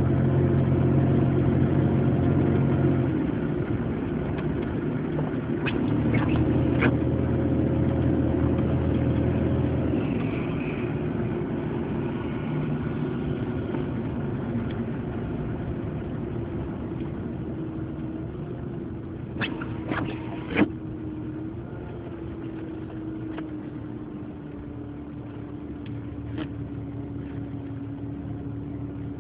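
A car engine running with road noise while driving in snow: a steady hum that eases off in loudness after about ten seconds, with a few sharp clicks about six seconds in and again about twenty seconds in.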